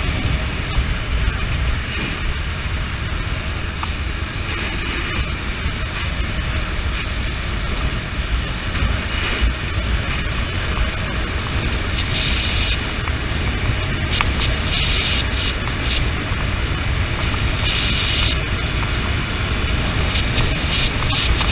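Honda CB motorcycle ridden at steady speed. Wind rumbling on the camera's microphone covers the road and engine noise, with a faint brighter hiss now and then.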